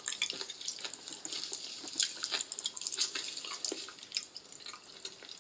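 Wet, sticky squelches and many short irregular clicks of raw liver being handled and pulled apart by gloved hands.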